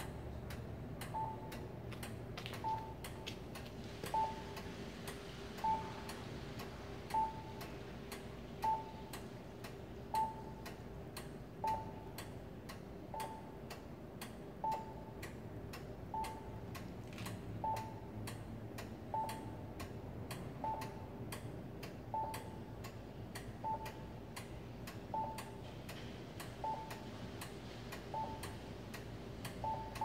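Polara Navigator accessible pedestrian signal push-button sounding a custom chirping-tick locate tone while the signal shows don't walk: a short beep about every second and a half over a steady fast ticking.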